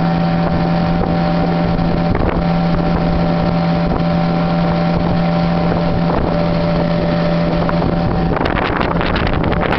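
Outboard motor of a motorized canoe running steadily at speed, a constant engine hum. Rough, irregular crackling, like wind or spray on the microphone, joins in near the end.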